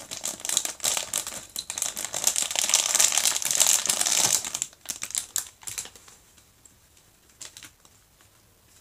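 Thin clear plastic packaging bags crinkling and crackling as they are handled. The crackling is dense for about the first four and a half seconds, then thins to a few scattered crackles and stops about six seconds in.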